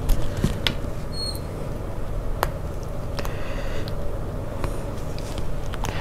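Small clicks and light handling noise from fingers working a tiny plastic ornament bulb plug and thin wire, a few sharp ticks spread through, over a steady faint hum.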